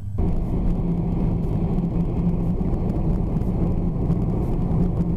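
Steady engine and road noise of a car driving.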